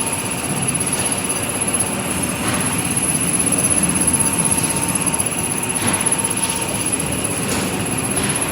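Machinery of an evaporative cooling pad production line running steadily, with a constant high-pitched whine over the noise.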